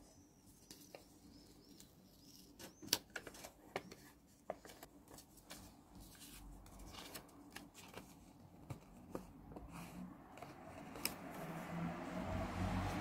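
Paper and stationery being handled up close: scattered sharp clicks, taps and rustles. A low rumble rises steadily near the end.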